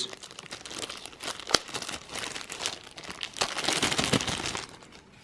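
Plastic packaging crinkling and rustling as it is handled, busiest and loudest for about a second before it stops near the end.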